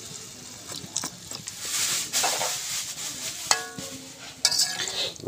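Liquid pouring into a steel wok, then a metal ladle stirring the mixture and clinking against the wok.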